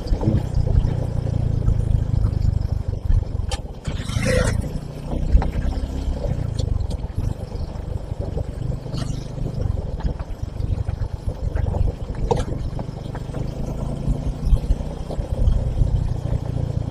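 Motorcycle running along at a steady pace, its engine hum mixed with heavy wind rumble on the microphone. A short rush of noise comes about four seconds in.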